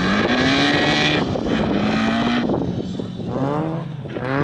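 Off-road racing buggy's engine running hard on a dirt track, its pitch rising and falling with the throttle and gears. The revs climb sharply twice near the end.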